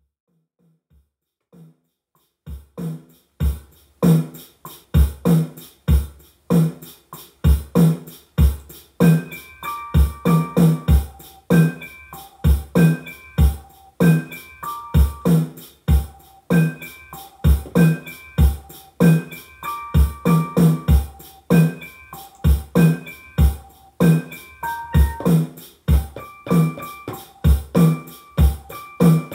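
Hip-hop instrumental beat played on a Maschine Mikro Mk1 pad controller: a steady drum-machine pattern of heavy low kicks and sharp hits starts about two seconds in, and a keyboard melody joins about nine seconds in.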